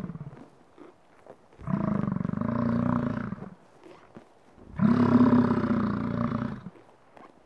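An ox lowing. One call ends just after the start, then come two long, deep moos of about two seconds each.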